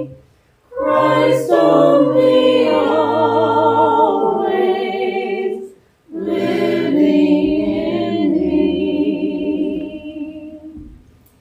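Voices singing a cappella with vibrato, in two long phrases, fading out near the end.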